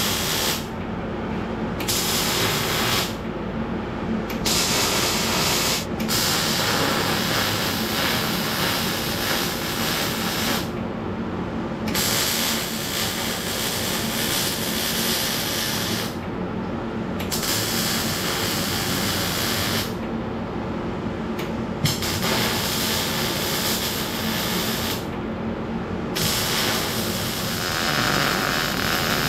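Welding on a steel firewood holder: a hissing crackle in runs of one to five seconds, broken by pauses of about a second, over a steady low hum.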